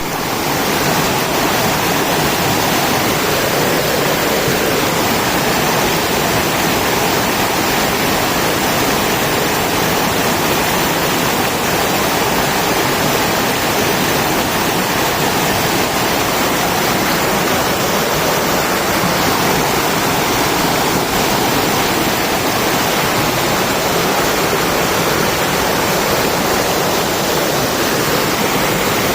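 Waterfall, a steady loud rush of falling water.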